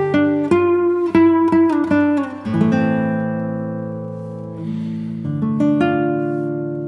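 Background music on acoustic guitar: a run of plucked notes stepping downward, then a few longer notes left ringing and fading.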